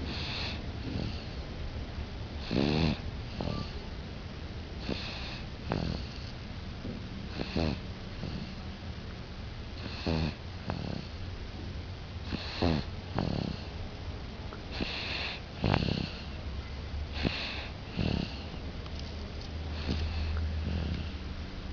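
A six-month-old baby snoring in her sleep, one snore on each breath, about every two and a half seconds.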